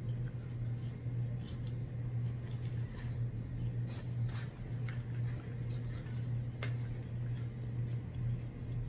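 Mouth sounds of someone chewing french fries: soft, scattered wet clicks, over a steady low hum.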